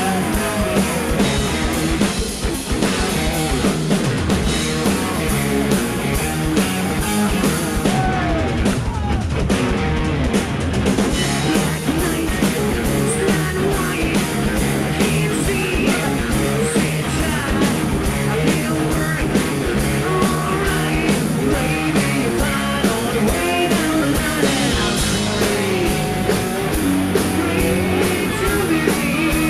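Rock band playing live: distorted electric guitars and a drum kit with a lead singer.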